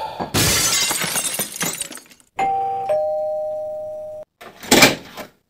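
Glass shattering with a crash, then a two-tone ding-dong doorbell chime, a higher note followed by a lower note that rings out, and a short burst of noise near the end.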